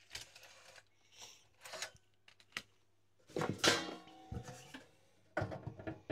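Handling noises: a few clunks and rustles. The loudest come about halfway through and again near the end, over a low mains hum that stops partway.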